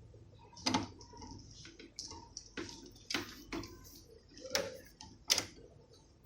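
Scattered sharp clicks and taps of a cable and connector being handled and plugged in at a repair bench, about six in a few seconds.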